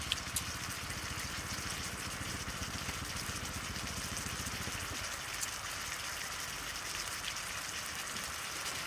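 Beef and vegetables sizzling in a large wok, a steady crackling hiss, with a few faint clicks.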